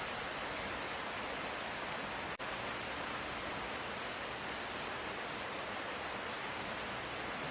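Steady light rain falling, an even hiss, with a momentary dropout about two and a half seconds in.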